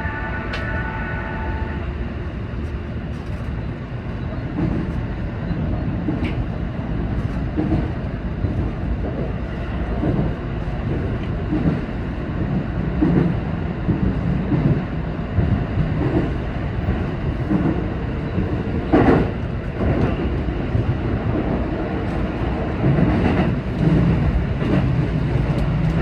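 Seibu 20000 series electric train running at speed: a steady rumble of wheels on rail with repeated clacks. A few ringing tones sound in the first two seconds, and a sharp, louder clatter comes about two-thirds of the way through.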